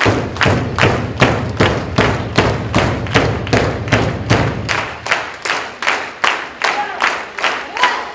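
Wrestling audience clapping in unison, a steady beat of about two and a half claps a second, with a low rumble underneath for the first half.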